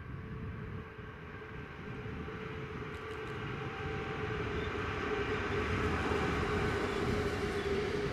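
Freightliner Class 66 diesel locomotive, its two-stroke V12 engine running under load, growing steadily louder as it approaches and passes at the head of a freight train, with the wagons' wheels running over the rails behind it.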